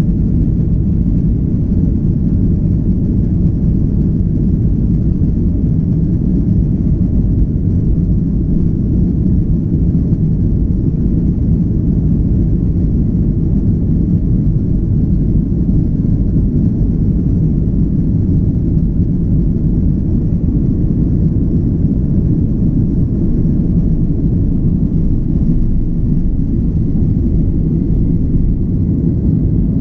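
Cabin noise of a Boeing 737 MAX 9 during its takeoff roll: its CFM LEAP-1B engines at takeoff thrust and the wheels rolling on the runway make a steady, loud, low rumble.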